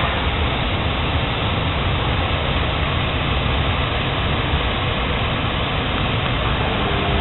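A row of oxy-fuel cutting torches on a Messer Griesheim Statosec P6500 CNC gantry cutter, cutting steel plate: a steady, unbroken rushing noise.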